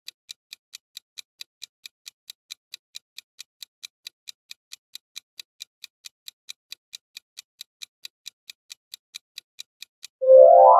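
Countdown-timer ticking sound effect: even clock-like ticks, about four a second, while the answer timer runs down. Near the end the ticks stop and a louder, short rising musical jingle begins as the timer runs out.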